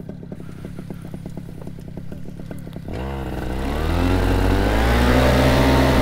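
Paramotor's two-stroke Vittorazi engine idling with an even pulse, then throttled up about halfway through, the pitch climbing and the engine running much louder at high power as the wing is pulled up for a Cobra launch.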